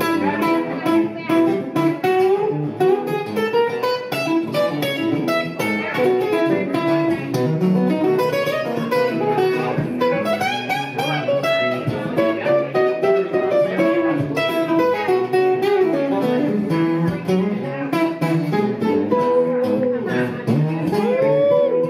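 Electric guitar played live through a PA in an instrumental lead passage: runs of quickly picked single notes, with string bends near the end.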